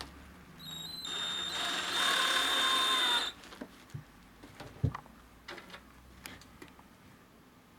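Cordless drill with a socket bit driving a screw-in stud into the rubber sole of a hoof boot: the motor whines for about two and a half seconds, picking up speed, then cuts off suddenly. A few knocks and clicks of the boot being handled follow.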